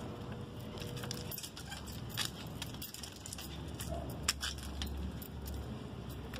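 Bicycle being pushed over stone paving: scattered light clicks and rattles over a low steady rumble, with one sharper click a little past four seconds in.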